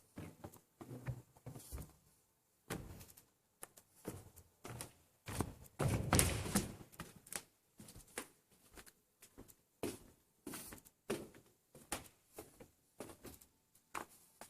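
Irregular knocks and thumps from objects being handled or struck, with a louder run of thumps about six seconds in.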